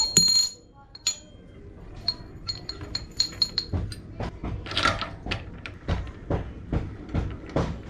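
Metal clinks and clicks from a hand wrench working on a BMX front hub as it is dismantled and the cone nuts are loosened: a ringing clink at the start, a run of quick small clicks, then steady clicking about three times a second.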